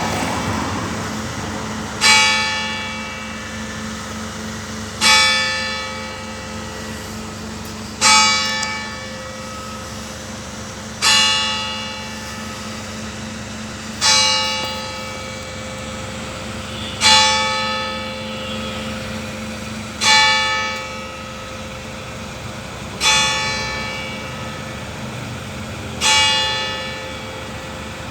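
A single church bell tolled at a steady pace, one stroke about every three seconds, nine strokes in all. Each stroke rings out and dies away while the bell's low hum carries on between strokes. It is rung as the call to Mass.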